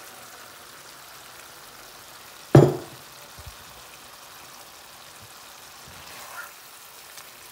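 Beef chunks frying in oil and spice paste in a pan, a steady sizzling hiss. About two and a half seconds in there is one loud, sudden knock.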